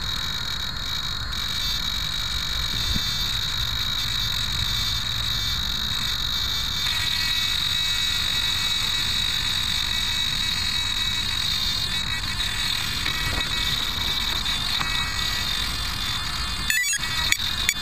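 Steady high-pitched whine and buzz made of several fixed tones. Near the end, a sharp click is followed by evenly spaced ticks, about two a second.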